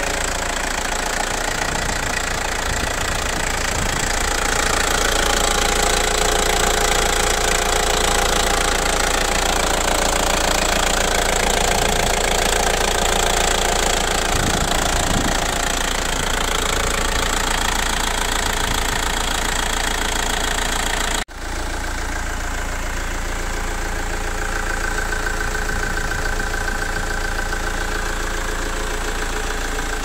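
Ford Transit Mk6 2.4 Duratorq diesel engine running with timing chain noise. The chain is worn and due for replacement. The sound breaks off for an instant about two-thirds of the way through and resumes slightly quieter.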